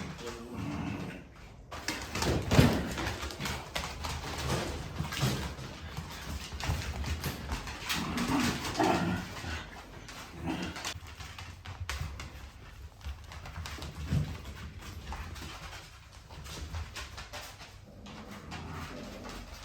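Shiba Inu puppies playing excitedly, with irregular short whimpers and yips over scuffling and knocking.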